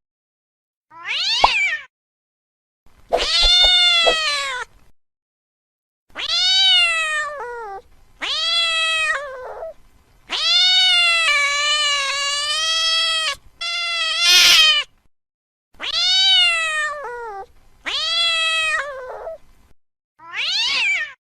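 Angry domestic cat yowling: about nine drawn-out meows, each rising and then falling in pitch. Several end in a short, lower downward tail. They are separated by brief silences, and the longest, a little past the middle, lasts about three seconds.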